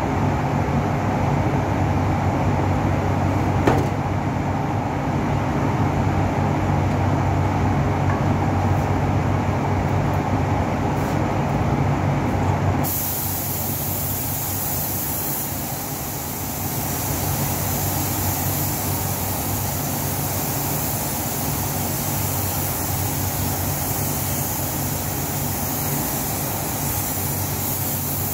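Steady rush of a paint spray booth's ventilation together with the air hiss of a gravity-feed spray gun spraying a car. About halfway through, the deep hum drops away and a brighter hiss takes over.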